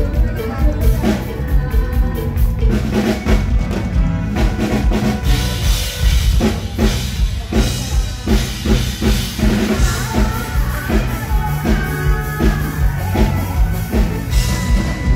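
A full live band playing through the stage PA, with a steady, heavy kick-drum beat and drum kit driving the song.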